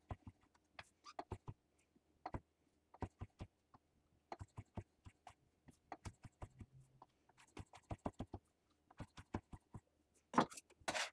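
Chef's knife slicing oyster mushrooms on a wooden butcher-block board: a quick, irregular series of soft taps as the blade goes through and knocks the wood. Near the end come two louder scraping sounds.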